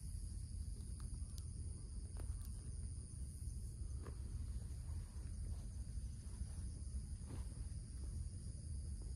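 Steady high-pitched insect chorus, several shrill tones held without a break, over a low rumble, with a few faint brief rustles.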